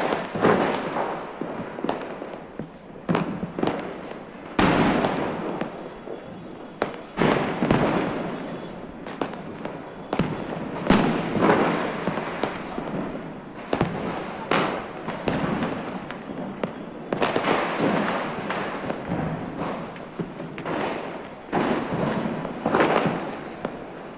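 Diwali firecrackers and fireworks going off all around, bang after bang at irregular intervals, each crack echoing.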